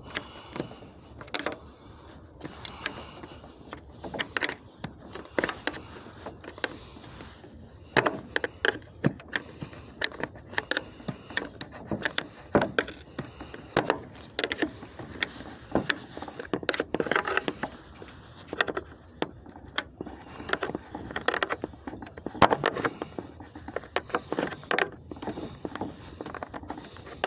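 Wood chisel prying the plastic end tanks off an aluminum-core radiator: irregular sharp metallic clicks, clinks and scrapes in quick spurts as the chisel works along the crimped edge.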